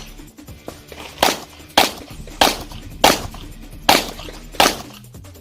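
Handgun shots fired during an IPSC practical shooting stage: six sharp reports about two-thirds of a second apart, from about a second in to near the end.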